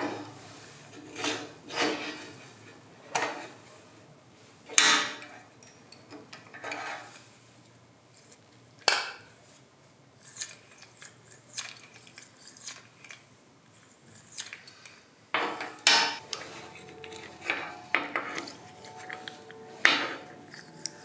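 Antique safety razor blade sharpener's small metal case being handled on a steel workbench: irregular metallic clinks and knocks from the case, its hinged lid and its roller-and-gear mechanism, with quieter scraping between.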